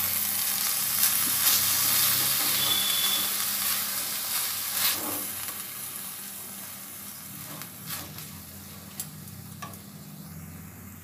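Silicone spatula stirring and scraping sugared grated coconut around a non-stick kadai over a gas flame, with a soft sizzle as the coconut filling cooks. The stirring and sizzle grow quieter after about five seconds.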